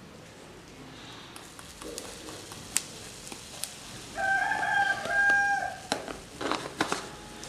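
A rooster crows once, a long pitched call a little past the middle, over a faint sizzle of oil frying in a wok. A few sharp clicks follow near the end.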